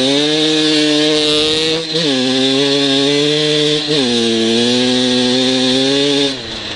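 Motorcycle engine running hard at high revs. It shifts up twice, about two and four seconds in, each shift a brief dip that settles at a slightly lower pitch, then backs off near the end.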